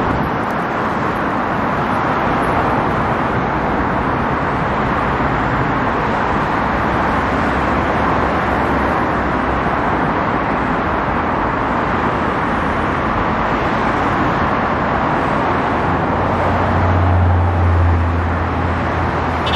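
Steady hiss of road traffic on a busy multi-lane avenue. A vehicle's low engine drone swells briefly near the end.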